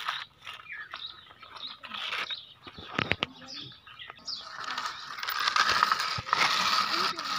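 Plastic toy tractor and backhoe wheels rolling and rattling over sandy dirt. There is a quick cluster of clicks about three seconds in, and a denser rasping rattle from about four seconds in.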